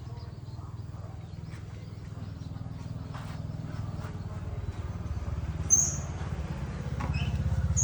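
An engine running steadily with a fast, even pulse, gradually getting louder. Two short high-pitched squeaks come near the end.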